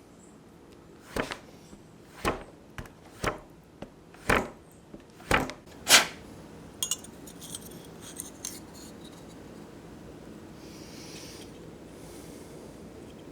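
A series of about six sharp knocks, roughly one a second, the last the loudest, followed by a few lighter clicks and then a faint steady background.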